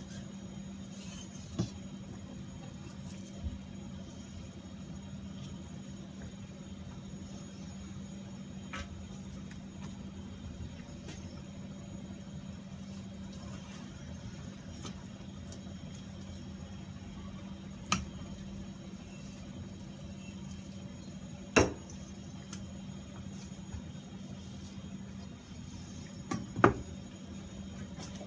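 Tuna butchering work: a steady low hum under a handful of sharp, isolated knocks and clinks from knives and tools against the cutting board, the loudest two late on.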